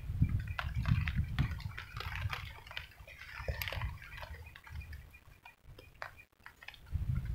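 Rain falling: irregular light taps of raindrops, densest in the first few seconds, over a low rumble that fades about halfway through.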